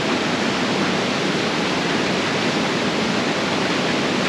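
Steady rushing of a fast-flowing river swollen with floodwater, with an even noise of water that does not change.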